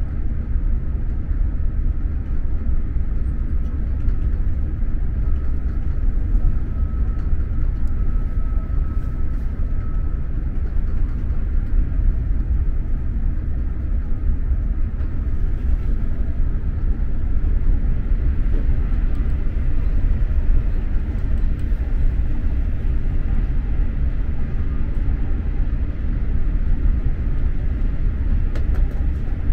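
SJ X2000 high-speed train running at speed, heard from inside the passenger car as a steady low rumble with a few faint clicks near the end.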